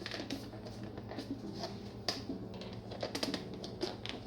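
Irregular light clicks and taps of things being handled, over a steady low hum.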